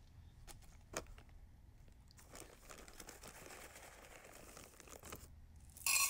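A plastic bag crinkling and rustling as a hand gathers small pebbles. Near the end, a handful of pebbles clatters into a glazed ceramic planter with a ringing clink, the loudest sound.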